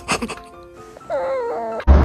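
A dog gives a short wavering whine about a second in, over background music.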